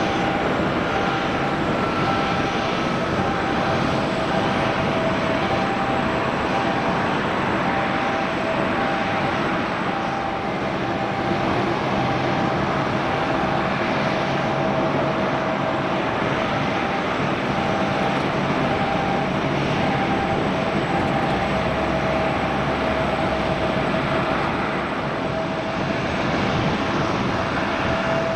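Boeing 737-800 jet engines idling: a steady roar with a whining tone that comes and goes.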